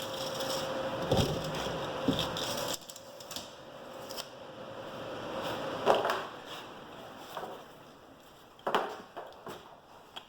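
A steady mechanical hum that cuts off abruptly about three seconds in, with several sharp knocks and clatters of handled workshop parts scattered through.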